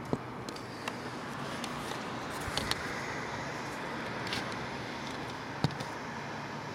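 Steady outdoor background hum with a handful of sharp clicks scattered through it, the loudest just after the start and about two-thirds of the way in.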